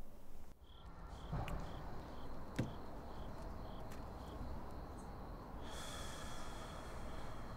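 Crickets chirping evenly, about two chirps a second, turning into a steadier trill near the end, over a low background hum. A single short knock sounds about two and a half seconds in.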